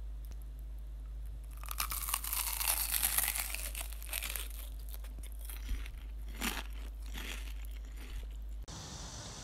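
Dense, crisp crunching and crinkling for about three seconds, then a few single crunches, over a steady low hum. Near the end it cuts off suddenly into a faint hissing outdoor background.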